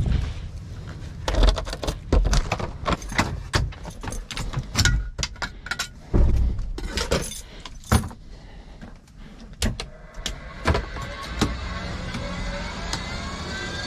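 Keys on a red tag jangling, with clicks and knocks as things are handled in a light aircraft's cockpit. About ten seconds in a steady low hum comes up, with a faint rising whine above it.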